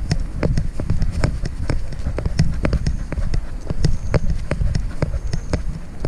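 Footfalls and jostling of a dog trotting along a concrete lane, picked up by a camera strapped to its head: a steady run of clicks about three a second, in step with its gait, over a low rumble of mount and handling noise.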